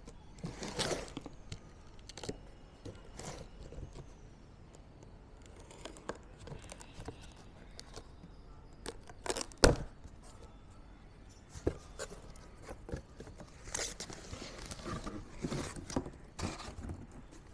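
Packaging being torn open and handled during an unboxing: tearing, scraping and crinkling with scattered clicks, and one sharp knock just under ten seconds in.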